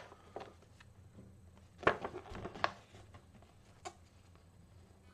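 Things being handled on a desk: a few light clicks and knocks with some rustling, a louder cluster about two seconds in and one last click near the end.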